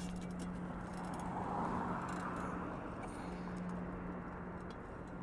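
Car running along the road, heard from inside the cabin: a steady engine hum over road noise. The noise swells briefly about two seconds in.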